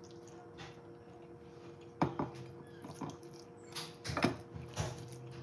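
Eating sounds: a few soft clicks and knocks from fork, plate and mouth while someone eats, over a faint steady hum.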